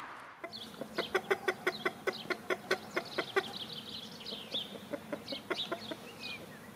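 Exchequer Leghorn chickens clucking in a quick, even run of about five clucks a second for about three seconds, then more sparsely. High chirps from small birds sound in the background.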